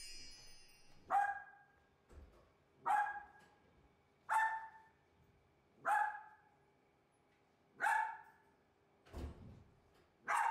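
West Highland White Terrier barking at a gate to greet its owner coming home: five single sharp barks, about one every second and a half, at lowered volume. A dull low thud comes about nine seconds in.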